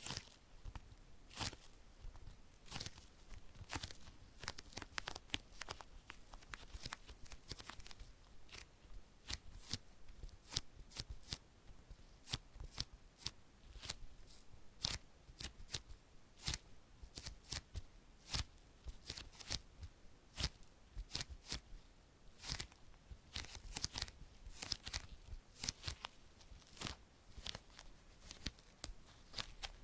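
Close-miked crinkling and crackling: a dense, irregular run of short sharp ticks, typical of plastic wrapping being handled or unwrapped.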